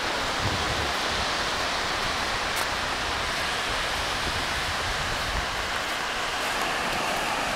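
Steady rushing wash of sea surf breaking along a sandy beach.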